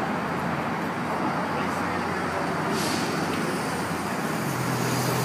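Steady road traffic noise from vehicles on the Brooklyn Bridge roadway, with a brief hiss about three seconds in and a low steady hum joining near the end.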